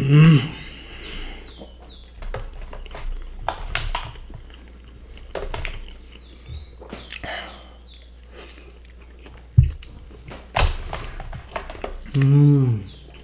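Close-miked chewing and mouth sounds of people eating fries and breaded cutlet, with scattered small clicks and two sharp knocks about ten seconds in. A brief hummed voice sound comes right at the start and again near the end.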